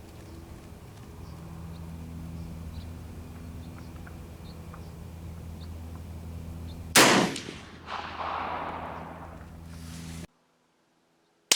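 A single rifle shot about seven seconds in, with a long echo trailing off after it, over a steady low hum. It is a sighting shot fired after a windage and elevation correction. The sound drops out to silence near the end, then a second sharp report begins just as it ends.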